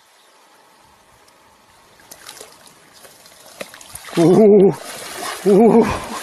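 Water splashing and sloshing as a large fish is grabbed and lifted by hand in shallow water. It is broken twice near the end by loud, wavering vocal cries.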